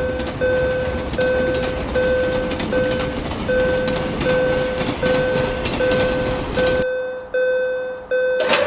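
Japanese railroad crossing alarm ringing its repeated "kan kan" tone, a little more than once a second, over the rushing noise of a passing train. The train noise cuts off suddenly about seven seconds in while the crossing bell keeps ringing.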